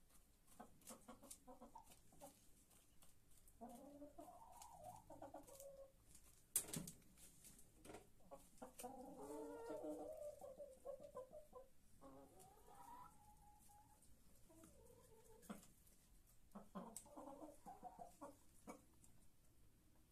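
Hens clucking faintly in several spells while pecking feed from a plastic feeder, with many small sharp clicks throughout and one louder knock about a third of the way in.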